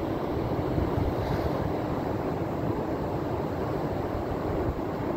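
Sea waves washing and breaking over shoreline boulders, a steady rush of surf, with wind buffeting the microphone.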